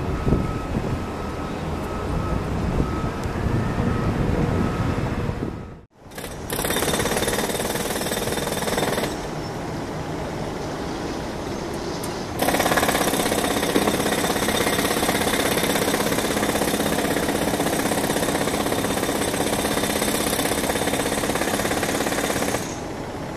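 Jet aircraft noise. First a climbing jet's low, uneven rumble. After a break, a Boeing 767-300F freighter on approach: a steady engine whine with several held tones, which steps louder about halfway through.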